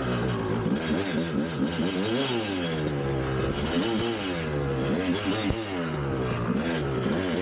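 1999 Kawasaki KX250's single-cylinder two-stroke engine revving up and down repeatedly, its pitch climbing and dropping several times as the throttle is worked.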